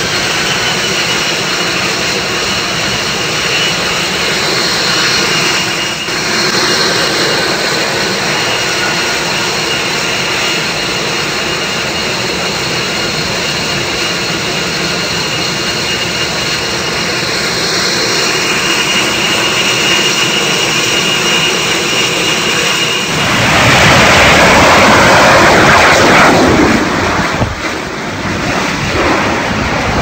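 F-35B jet engine running on the flight deck with a steady high whine. About three-quarters of the way through, a much louder jet roar takes over for a few seconds.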